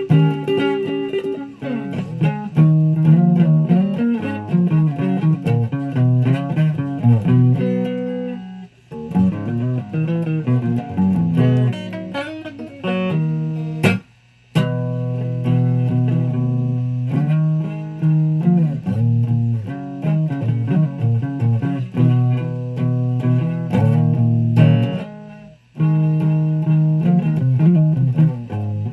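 Guitar being played: a steady run of plucked single notes and note patterns, breaking off briefly about fourteen seconds in and again near twenty-six seconds.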